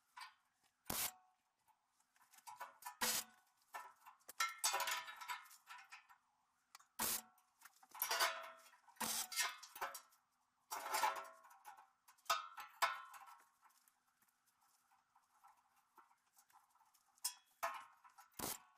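Gas-shielded MIG welder crackling in short tack-weld bursts of about a second each, with several sharp metallic knocks between them.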